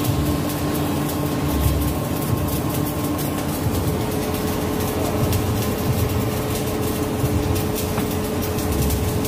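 Stick (shielded metal arc) welding: the electrode's arc crackling steadily as a bead is run on steel, with a faint steady hum underneath.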